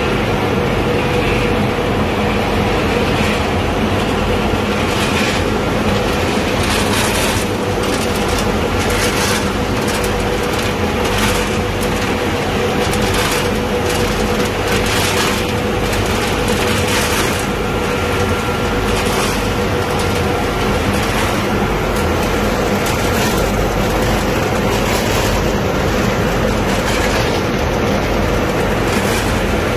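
Peanut frying and seasoning line running: a steady mechanical hum and rumble with irregular rattling from the metal conveyors and the peanuts moving over them.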